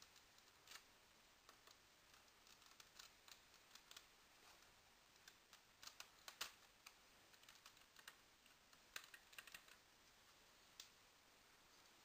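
Faint, irregular light clicks and taps.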